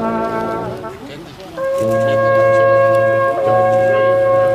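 Slow music of long held chords played on wind instruments, with a brief break about a second in before the next chord sounds.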